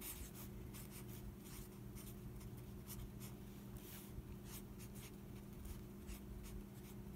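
Felt-tip marker writing on lined notebook paper: many short scratchy strokes, over a steady low hum.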